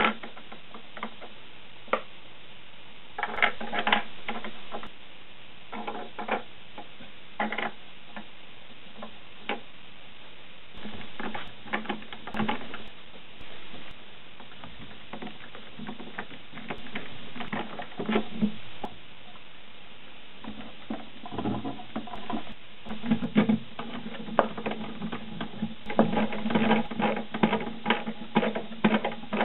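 Small plastic parts and steel rods being handled and set down, with scattered clicks and taps, then screws being driven into 3D-printed plastic rod clamps with a screwdriver, a dense run of rapid clicks over a low hum in the last third.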